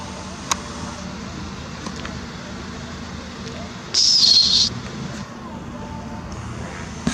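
Steady outdoor background noise with a low hum and a small click about half a second in; about four seconds in, a brief, loud, high-pitched squeal that slides slightly down in pitch and stops after under a second.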